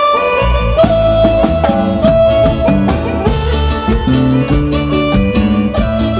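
Live band playing a chilena: a held electronic keyboard melody over electric bass guitar and drum kit, with the bass and drums coming in about half a second in and steady cymbal strokes.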